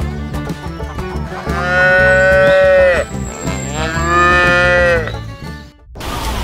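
Cow mooing twice, two long drawn-out calls about a second apart, over light background music.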